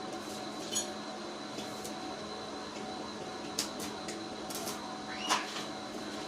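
A few light clinks and taps over a steady faint hum, with a short falling squeak near the end; the cut-off saw is not running.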